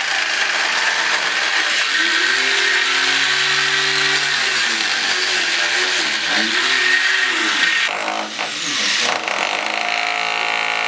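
Angle grinder cutting into a concrete wall, its disc grinding steadily under load. About nine seconds in, it gives way to a rotary hammer drill chiselling at the edge of the hole.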